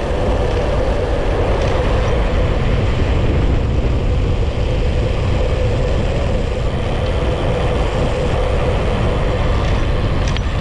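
Wind rushing over a GoPro microphone as a bicycle coasts fast downhill, with tyre noise on asphalt and a steady hum underneath. A couple of faint clicks near the end.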